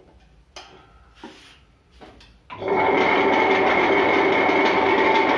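A few light knocks as the grinding stones are set in the steel drum, then about two and a half seconds in the tabletop wet grinder switches on: its newly fitted motor turns the empty drum against the stone rollers with a loud, steady whir and hum, showing the replacement motor runs.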